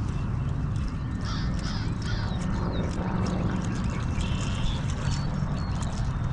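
Birds calling in short, repeated calls over a steady low background noise.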